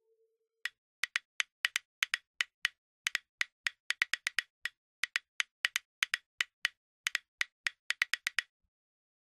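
Sharp wood-block clicks in a quick, uneven series, about four a second, starting just under a second in and stopping shortly before the end.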